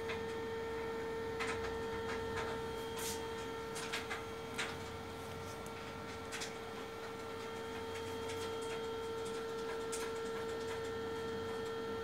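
A few small, scattered plastic clicks as a flat ribbon cable is handled and seated in an IDC connector by hand, over a steady hum.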